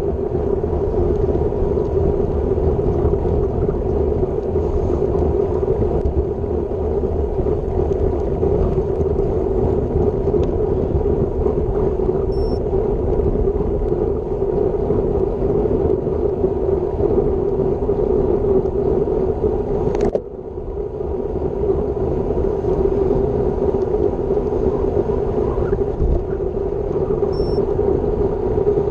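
Steady wind rush and tyre-on-asphalt road noise from a road bike riding at about 35 km/h, picked up by the bike-mounted action camera's microphone. A brief click with a short dip in level comes about two-thirds of the way through.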